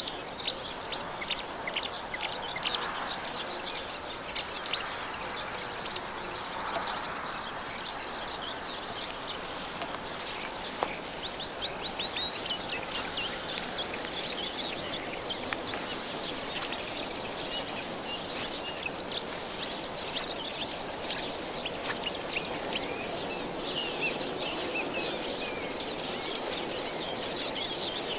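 Several songbirds chirping and singing throughout, over a steady hum of outdoor background noise.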